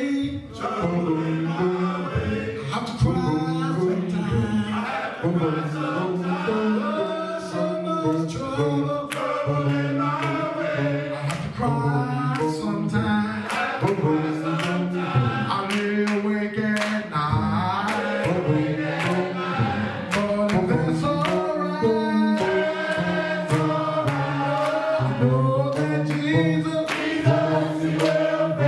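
Men's choir singing a gospel song, several voices together.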